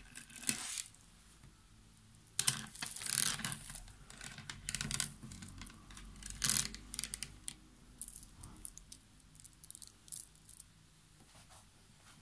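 Cloth rustling and rubbing as hands lift, move and smooth fringed towels on a tabletop, in irregular swishes, then a run of light ticks.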